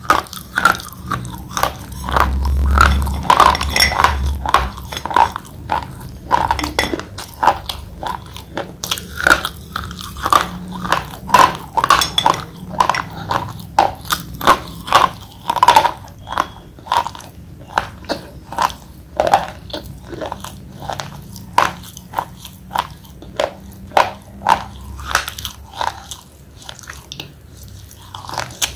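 Thick slate pencils being bitten and chewed close to the microphone: a steady run of sharp, dry crunches, about two a second.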